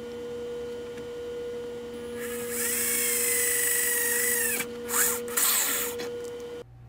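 Corded electric drill spinning up about two seconds in and boring through a fiberglass spoiler for about two and a half seconds, its whine sinking slightly lower as it goes, then two short bursts of the trigger.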